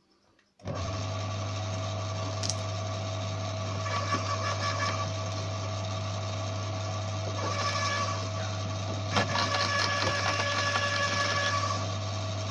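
Electric garden shredder switched on under a second in, its motor running with a steady hum. From about four seconds in, irregular crackling and crunching as branches are fed through and chopped.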